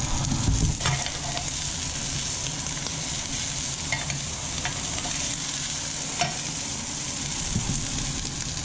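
Wafer-thin slices of limpet meat and garlic sizzling steadily in hot oil in a frying pan, flash frying, with a few faint clicks scattered through.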